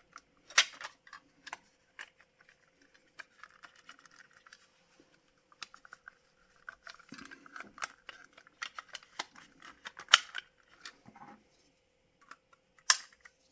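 Small, irregular clicks and scrapes of a tack-removing tool prying clear plastic window glazing out of a die-cast model coach body, with sharper clicks about half a second in, near ten seconds and near the end.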